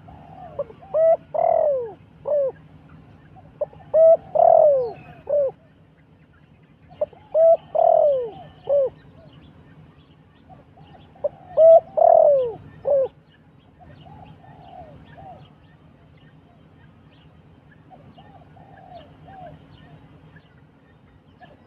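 Dove cooing: four loud phrases of several notes each, a few seconds apart, then two fainter phrases near the middle and end. Faint higher chirps of other birds come and go under the calls.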